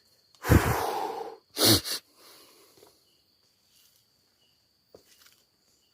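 Two loud breath noises close to the microphone, a longer one about half a second in and a short one about a second later, over a faint steady insect trill.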